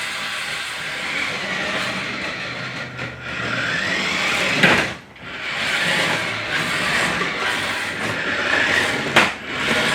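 Electric motor and gearing of a Jada RC Toyota Supra toy drift car whining as it drives fast across the floor, the pitch wavering as it speeds up and slows. Twice, about halfway and near the end, the sound dips sharply and then surges back.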